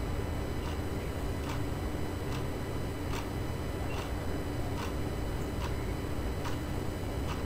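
Steady low background hum with faint, sharp ticks repeating at a fairly even pace, a little more often than once a second.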